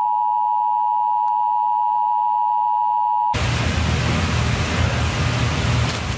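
Emergency Alert System attention signal: a steady two-tone electronic tone near 1 kHz that cuts off suddenly about three seconds in. Loud rushing storm-wind noise, heavy in the low end, takes over.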